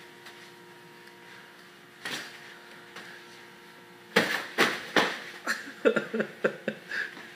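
Boxing gloves landing punches in sparring: one smack about two seconds in, then a quick flurry of about a dozen sharp smacks over the last three seconds, over a faint steady hum.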